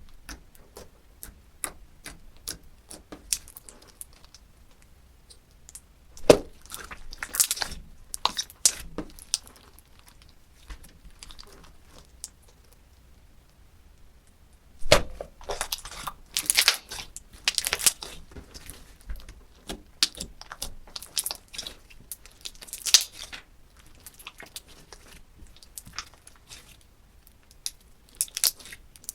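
Slime being pressed and squeezed by hand, giving runs of sharp crackling and popping clicks with a quieter pause around the middle.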